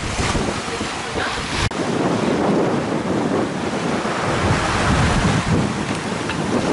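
Wind buffeting the microphone over the rush of waves on a rough, choppy sea. There is a sudden brief dropout about two seconds in.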